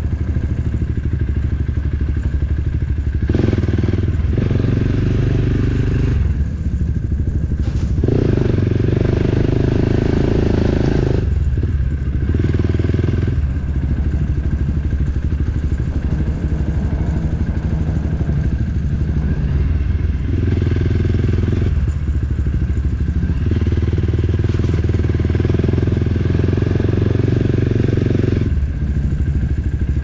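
Dirt bike engine running while riding along an unpaved track at about 40 km/h. The engine note shifts every few seconds as the throttle opens and closes, with some rattling from the bike over the rough ground.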